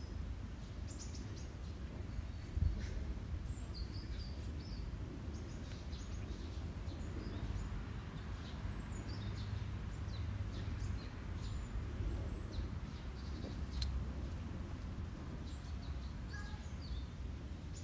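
Small birds chirping on and off, in short high notes scattered throughout, over a steady low background rumble.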